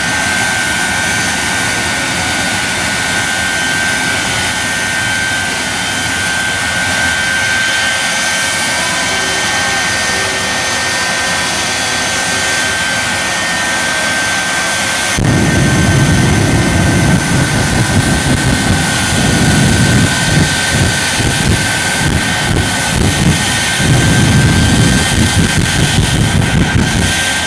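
The Shockwave semi truck's three jet engines run with a steady high whine and hiss. About halfway through, a much louder low rumble sets in suddenly and pulses unevenly as flames blast from the truck's stacks and rear.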